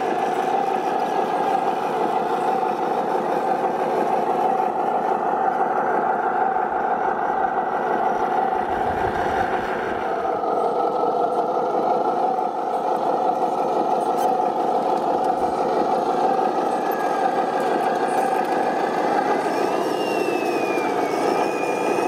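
Radio-controlled model truck or construction machine running with a steady mechanical hum. Near the end a thin whine rises and falls in pitch.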